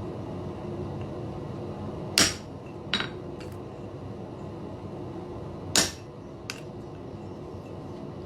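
Hammer blows on a half-round chisel cutting the collar into iron: two hard, ringing strikes about three and a half seconds apart, each followed by a lighter knock or two. A steady hum runs underneath.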